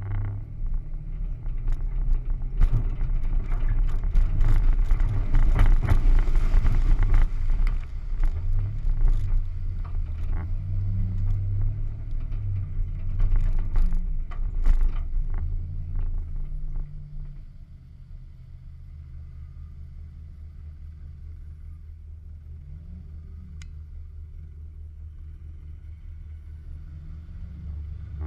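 ATV engine revving hard over rough mud, its pitch rising and falling under heavy rumble with many knocks and rattles. About two-thirds of the way through it drops to a quieter, steady idle.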